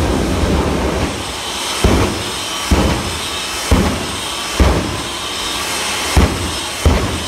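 Jet engine of a monster-truck fire engine running with a steady rush, its afterburner firing in sharp, loud blasts about once a second.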